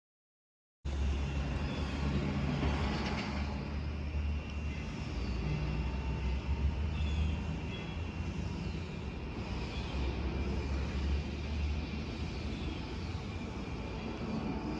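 Steady low rumble of a jet airliner's engines, cutting in suddenly about a second in.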